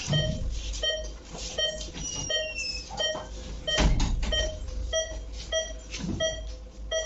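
Patient monitor's pulse-oximeter beep sounding with each heartbeat, a short pitched tone repeating a little under twice a second. Rustling and handling noise run under it, with a louder knock about four seconds in.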